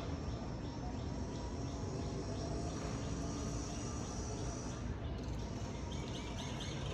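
Faint chirping that repeats evenly, about two to three chirps a second, over a low steady background hum.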